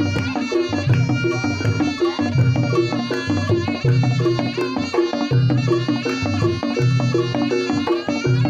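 Reog Ponorogo gamelan playing: a reedy slompret melody over kendang drumming and struck percussion, with a low beat about once a second.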